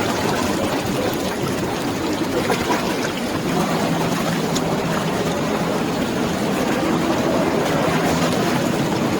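Steady rush of water with the low, steady drone of a distant motorboat engine coming in about three and a half seconds in.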